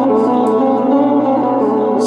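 Keyboard synthesizer playing an instrumental melody over steady sustained accompaniment.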